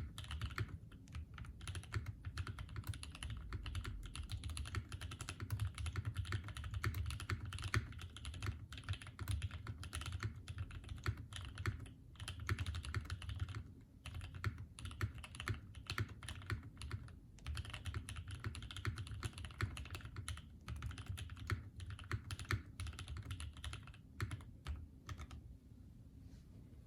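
Steady typing on a wilba.tech Thermal custom mechanical keyboard (HHKB layout, aluminium plate, lubed Tangerine linear switches, GMK doubleshot ABS keycaps): a fast, continuous run of keystrokes, each with a deep, low note under the click. There are a few brief pauses, and the typing stops shortly before the end.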